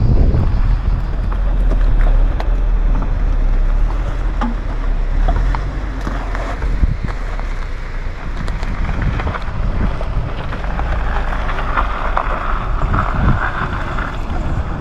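Wind buffeting the microphone with a steady low rumble, over a Suzuki Jimny Sierra crawling across rocky dirt with its engine running and scattered small clicks of tyres on stones.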